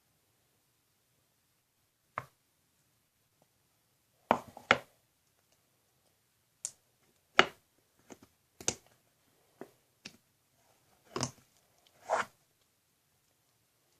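Scattered short sticky squelches and taps, about ten of them, some in quick pairs, as slime is worked by hand into a balloon through a funnel.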